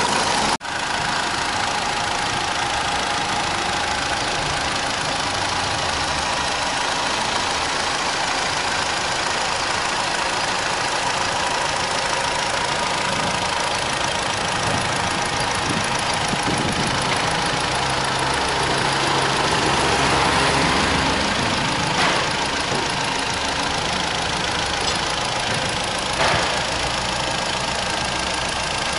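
Opel Astra G petrol engine, converted to run on petrol and LPG, idling steadily, heard close up in the open engine bay. There is a brief cut in the sound just after the start, and two light knocks late on.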